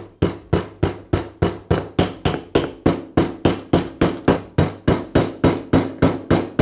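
Small hammer tapping a steel roll pin into a Bostitch nailer's housing to secure the trigger-valve piston: a rapid, even run of light taps, about four a second, each ringing briefly.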